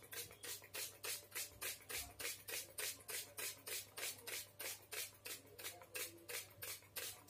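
Fine-mist pump spray bottle of plain water sprayed at a face over and over, a quick run of short hissing puffs at about four a second.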